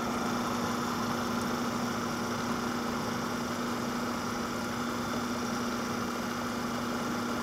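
KitchenAid food processor running steadily, a constant motor hum with the blade spinning, emulsifying oil into garlic toum sauce.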